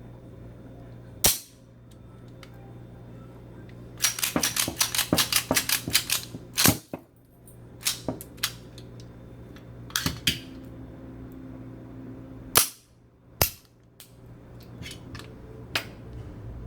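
Sharp metallic clicks and snaps from a Llama Especial .32 ACP pistol's parts being handled during reassembly. A quick run of about a dozen clicks comes four to six seconds in, with single louder snaps scattered before and after.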